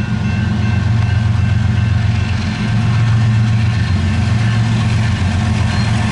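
Diesel locomotives of an approaching freight train, led by a GE ES44DC with its GEVO V12 engine, running with a steady low drone.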